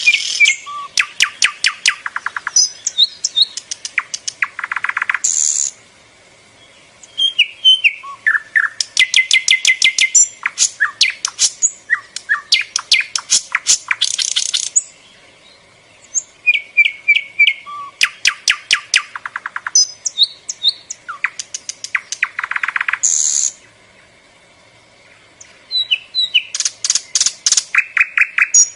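A small bird singing: bouts of rapid chattering trills and chirps, each lasting several seconds, with short pauses between them.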